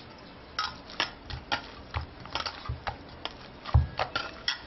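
Hands kneading stiff semolina-and-maida dough in a stainless steel bowl: irregular clicks and clinks from glass bangles and the bowl, with a few low thumps as the dough is pushed down against the bottom.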